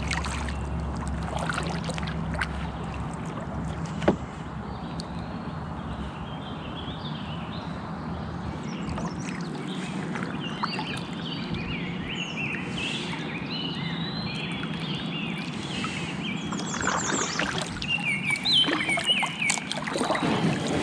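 Kayak paddling on a river: steady water noise with a sharp knock about four seconds in. Birds chirp from about six seconds on, and louder, uneven paddle splashes come near the end.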